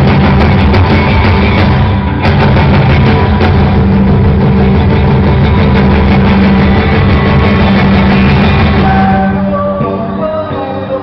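Rock band playing live, loud, with heavy distorted guitars and pounding drums. About nine seconds in, the full band drops away to a quieter passage of clearer held notes.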